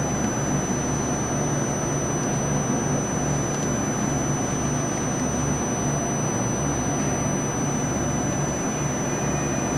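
Okuma & Howa Millac 438V CNC vertical machining center running with a steady low mechanical hum that pulses slightly, and a thin steady high tone above it.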